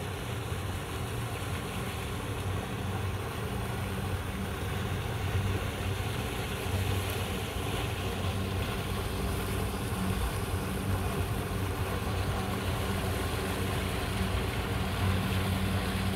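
Outboard motor of a small center-console boat running at low speed with a steady low hum.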